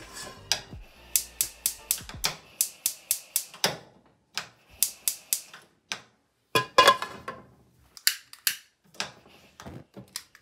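Gas stove burner's spark igniter clicking in runs of rapid ticks, about four a second, with pauses between runs, while a poor burner is slow to light; the flame is lit near the end. A louder knock about seven seconds in.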